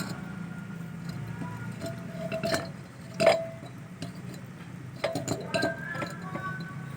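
Metal parts of a dismantled refrigerator compressor clinking and tapping as they are handled, each knock with a short ring. The loudest knock comes near the middle, and a quick cluster of clinks follows a couple of seconds later.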